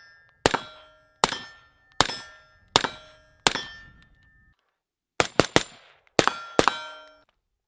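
Suppressed 5.56 AR-15 rifle firing through a B&T SRBS 556 suppressor, each shot followed by the clang and ring of a struck steel target. Five shots come at an even pace, about one every three-quarters of a second. After a short pause, a quicker string of about five more follows.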